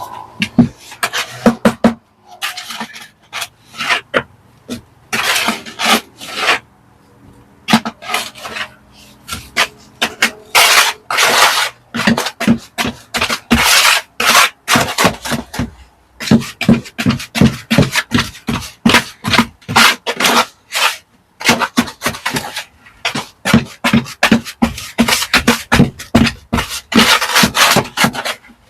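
A hand tool scraping and rasping against stone and mortar in quick repeated strokes, several a second, in runs with short pauses between.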